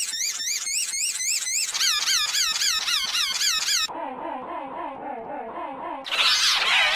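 Digitally edited squeaky sound effect: a high, wheezy squeal that wobbles rapidly up and down in pitch, about three to four wobbles a second. It drops to a much lower pitch about four seconds in, then jumps back up about six seconds in as several layered copies at once.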